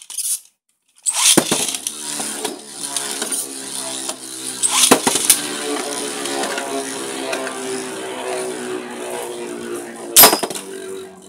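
Two Beyblade spinning tops launched into a clear plastic stadium about a second in, then spinning with a steady whir as they circle the stadium floor, with sharp clacks when they collide, the loudest near the end.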